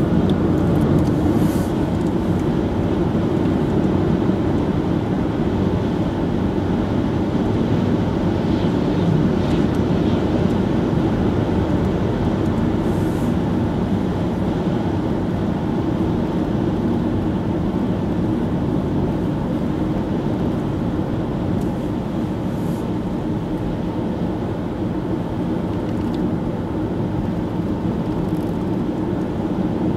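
Steady road and engine noise of a moving car heard from inside the cabin, a low even rumble that holds at the same level throughout.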